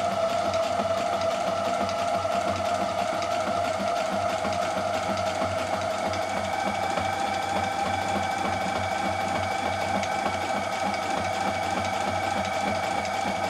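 Reliable Barracuda walking-foot sewing machine running under its electric motor, stitching a full-width, full-length zigzag through two layers of fabric. It is a steady motor whine with the needle mechanism working, and the pitch steps up slightly about halfway through.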